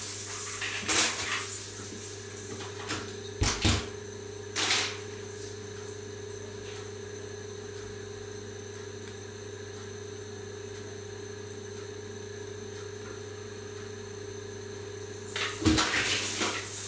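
A steady low mechanical hum holding a few fixed tones, broken by a few brief knocks in the first five seconds and a short cluster of clattering knocks near the end.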